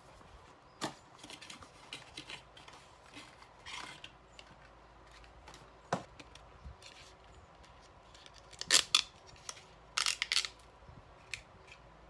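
Packaging being handled: a cardboard chocolate box opened and a wrapped chocolate picked out, heard as a string of short crinkles, rustles and clicks. The loudest crinkling comes in two clusters in the second half.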